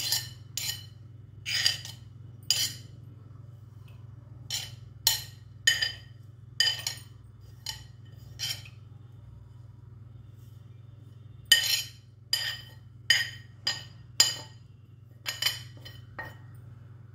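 A steel spoon scraping and clinking against a plate and a glass bowl as chopped ingredients are scraped off into the bowl. The clinks come irregularly, with a pause of a couple of seconds near the middle, over a low steady hum.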